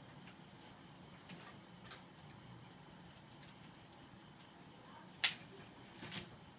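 Light clicks and knocks of plastic and metal parts as the 16-inch mini portable ceiling fan is handled and hung back up: a few faint ticks early, one sharp loud click about five seconds in, and a short rattle of clicks near the end, over a faint steady hum.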